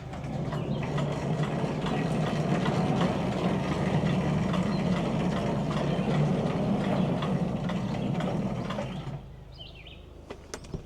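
Wood-Mizer LT15 band sawmill running steadily as it makes a cut through a white pine log, stopping about nine seconds in.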